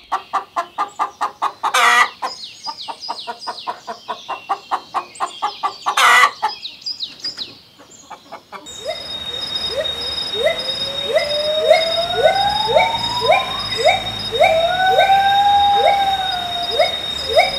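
A rooster clucking rapidly, with two loud short squawks about two seconds and six seconds in. About nine seconds in the sound changes to a gibbon calling: a string of quick rising whoops, about two a second, with a longer rising hoot and a long arching hoot among them, over a steady high-pitched tone.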